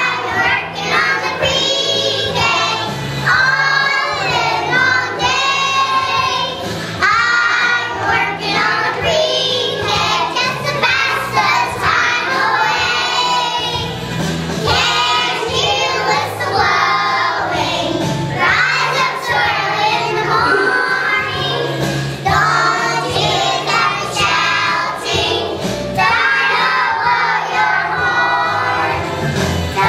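A group of preschool children singing a song together in unison, with recorded music playing behind them.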